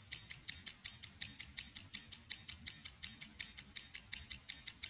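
Stopwatch ticking sound effect: rapid, even ticks, about six a second.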